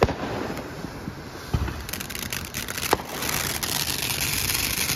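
Ground-based consumer firework (called Delirium) going off: three sharp bangs about a second and a half apart with crackling in between, then a steady hiss from about three seconds in.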